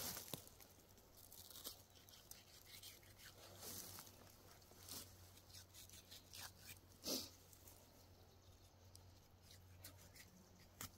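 Knife cutting and pulling through a black bear's hide during skinning: faint scraping and tearing of skin and fur, with a few short sharper crackles, the clearest about seven seconds in.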